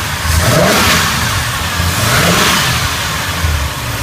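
Truck engine with a Holley 650 double-pumper carburetor revved twice from idle, picking up cleanly with no lean stumble.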